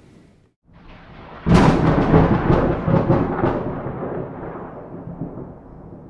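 Thunderclap: a sudden sharp crack about a second and a half in, then several crackles and a rolling low rumble that fades over the next few seconds, over a hiss of rain.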